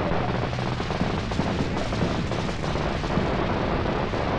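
Ground fountain firework spraying sparks with a continuous, dense crackle of rapid small pops over a steady hiss.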